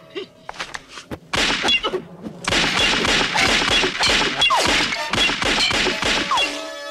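Film fight sound effects: a rapid run of whacks, thuds and crashing hits that thickens into a dense flurry. A held musical chord comes in near the end.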